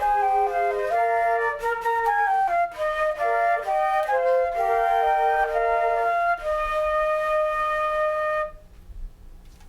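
Flute music: a quick melody of clear notes that settles on a long held final note, which stops about 8.5 seconds in, leaving a faint tail.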